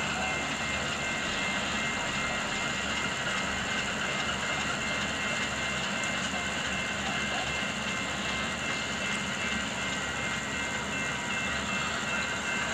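Pair of Alco S2 diesel switcher locomotives running light past at low speed, a steady diesel engine sound that carries on as the units move away.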